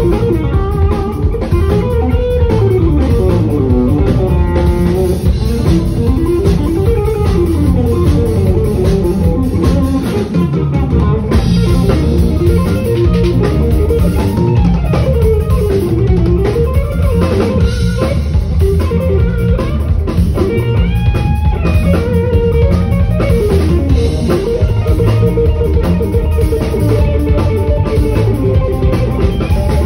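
Electric guitar playing a fast, fingerpicked solo of quick running lines over electric bass and a drum kit.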